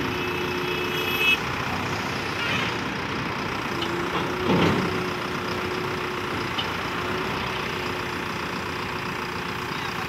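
Diesel engine of a 74.5 HP Manitou backhoe loader running steadily as the machine creeps in reverse along a flatbed truck's steel deck. There is a sharp clunk about a second in and a heavier knock about four and a half seconds in.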